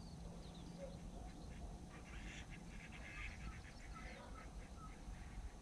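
A flock of birds calling, with a flurry of short, quick calls between about two and five seconds in, over a steady low rumble.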